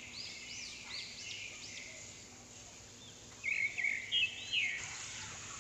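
Steady hiss of a hand-pump pressure spray bottle misting water over potted rose plants. Small birds chirp over it, loudest in a quick run of chirps just past the middle.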